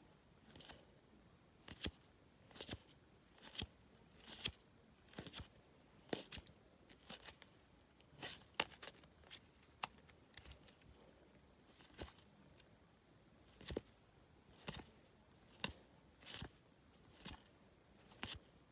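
Match Attax football trading cards being handled one at a time, a short faint card swish or snap about once a second.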